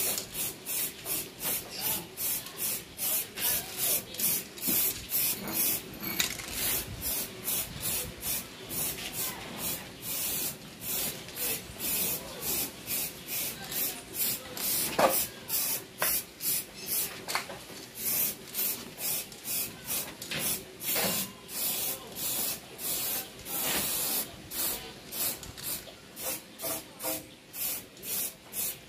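Paint spraying in short hissing bursts, about two a second, with a light knock about halfway through; this is silver paint being applied in quick passes.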